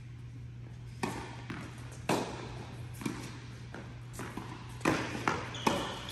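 Tennis balls being struck by rackets and bouncing on a hard court in a rally: sharp pops with an echoing tail, about one a second at first and coming faster near the end.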